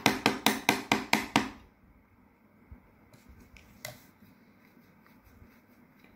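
A nearly empty bottle of yellow paint being shaken and knocked hard to get the paint out: a quick run of sharp, slightly ringing taps, about five a second, that stops after about a second and a half. Then a few faint clicks, one sharper one about four seconds in.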